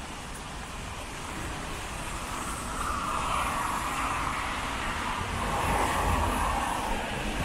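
Road traffic passing on wet pavement: tyres hissing on the wet road, swelling as vehicles go by about three seconds in and again around six seconds, over a steady low rumble.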